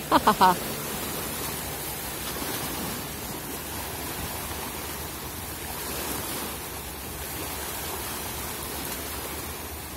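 Choppy, wind-driven water washing against shoreline rocks, a steady wash of noise with wind on the microphone.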